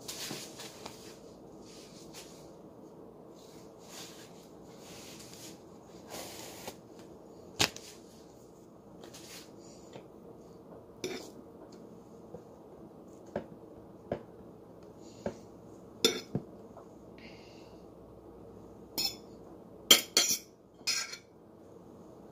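Metal fork clicking against dishes as food is handled: about a dozen short, sharp clinks spread out, several in quick succession near the end, between soft rustling.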